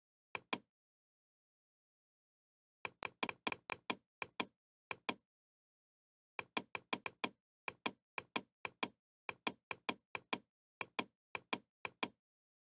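Computer mouse button clicking: a quick double click, then runs of rapid single clicks, about three to five a second, with dead silence between them.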